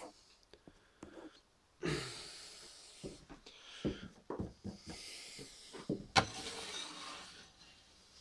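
Rustling with a few light clicks and knocks: handling noise as the camera is moved about. A sudden rush of rustling comes about two seconds in and fades away, and a sharp knock follows about six seconds in.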